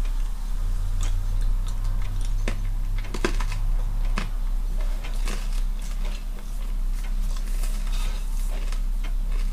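Close-up crunching and chewing of a brittle black sesame snap bar: irregular crackly clicks, thicker in some stretches than others, over a steady low hum.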